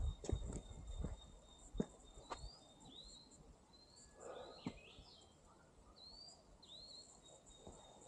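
Small bird calling: a series of short upward-sweeping chirps, several bunched together about halfway through, over a faint steady high tone. A few sharp knocks, like footsteps, fall in the first two seconds.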